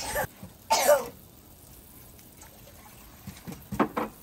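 A person coughing and clearing their throat: two loud coughs in the first second, then a few shorter ones near the end.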